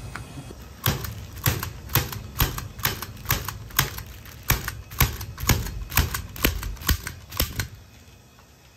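Hand stapler clacking shut again and again as it fastens the seam of reflective bubble-wrap duct insulation: a quick run of about twenty sharp clacks, roughly three a second.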